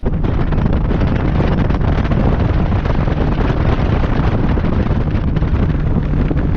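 Heavy wind buffeting the microphone, as on a fishing boat running at speed. It starts abruptly and holds loud and steady, strongest in the low end.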